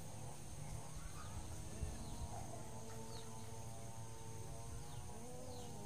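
Outdoor background sound: a few short bird chirps over a steady high insect drone and a low hum.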